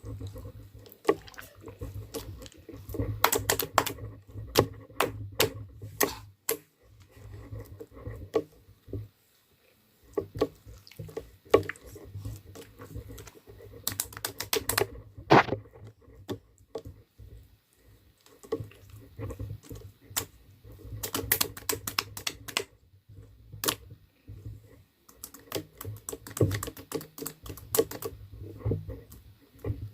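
Bursts of rapid, irregular clicking, broken by short pauses.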